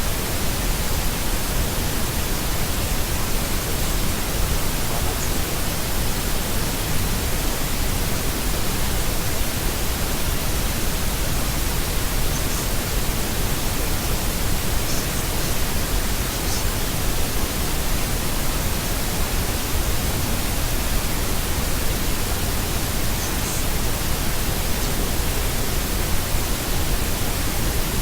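Steady, unchanging hiss of generated white noise, evenly spread from deep rumble to high hiss.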